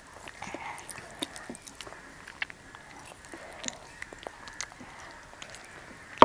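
Close-miked eating sounds: soft scattered clicks and smacks of chewing and of fingers working through rice, with one sharper knock at the very end.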